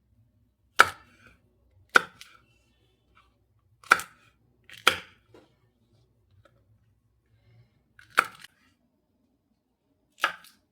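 Kitchen knife striking a cutting board in six single sharp chops, spaced one to two seconds apart, each followed by a softer tap.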